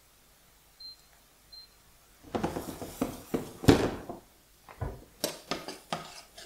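Two faint short beeps, then a spoon knocking and scraping in a saucepan as flour is stirred into butter and sweated onions for a roux, with one heavier knock near the middle.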